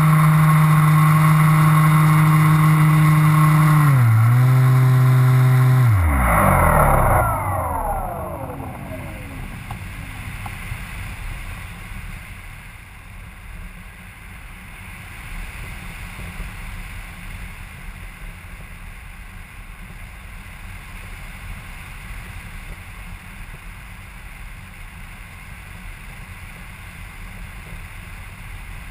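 Propeller motor of a small camera-carrying aircraft running at a steady high pitch, dipping briefly about four seconds in. About six seconds in it throttles down with a falling pitch and fades, leaving wind rushing over the microphone as the aircraft glides.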